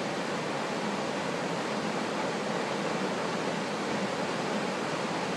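Steady, unbroken rush of falling water from a waterfall and whitewater river, even in level throughout with no distinct splashes or other events.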